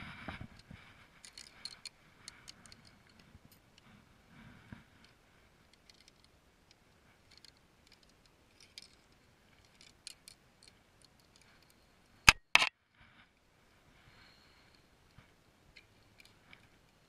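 Scattered small clicks and ticks from a fishing rod and baitcasting reel being handled, with two sharp, loud clicks close together about twelve seconds in.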